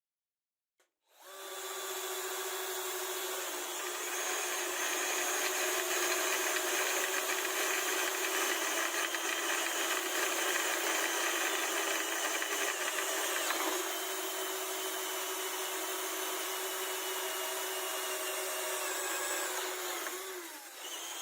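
Electric power tool motor starting about a second in and running steadily with a high whine, the pitch dropping and the sound fading as it winds down near the end.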